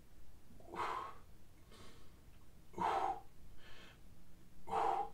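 A man breathing hard while pressing dumbbells overhead, with a forceful exhale about every two seconds and a fainter inhale between each.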